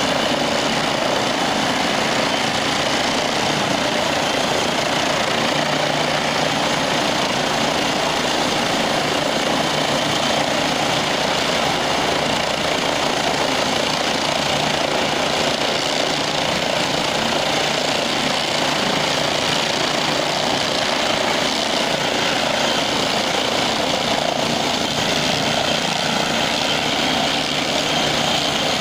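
Helicopter engine and rotor running with a steady, unchanging noise.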